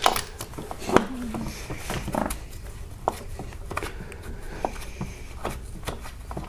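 Irregular metallic clicks and taps of a wrench backing out the starter motor's last lower mounting bolt, with two sharper knocks about a second apart at the start.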